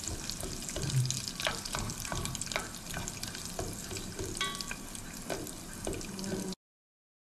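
Corn kernels sizzling in hot oil in a stainless steel pot, not yet popping, while a wooden spoon stirs them with scattered clicks and scrapes against the pot. The sound cuts off abruptly near the end.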